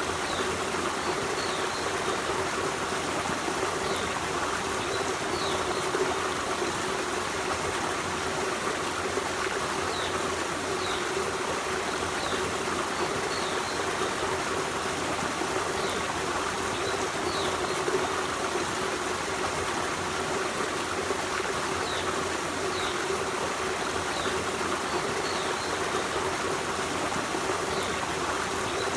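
Forest stream running steadily over rocks, a constant rush of water. Faint short high chirps come through every second or two.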